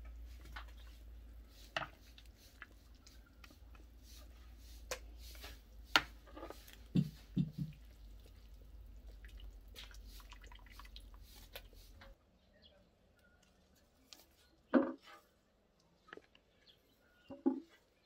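Soup being ladled from a large cooking pot into an enamel bowl: broth dripping and splashing, with short clicks and knocks, over a low steady hum. About twelve seconds in the hum stops and only a few soft thumps and rustles follow.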